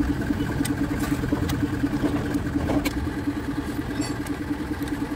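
An engine idling steadily, with a pulsing hum over a low rumble. A few sharp metal clicks come from a long wrench working on the truck's clutch cover bolts.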